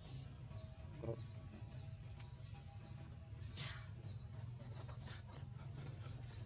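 A bird calling over and over: a short, high, falling chirp about twice a second, with a few sharper calls mixed in, over a steady low hum.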